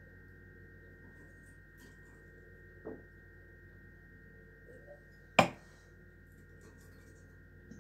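A glass champagne flute set down on the table about five seconds in: one sharp clink with a brief ring. A softer knock comes a few seconds before it, over a faint steady hum.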